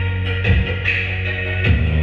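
Electronic dance music with deep, held bass notes and two drum hits, the bass changing note near the end.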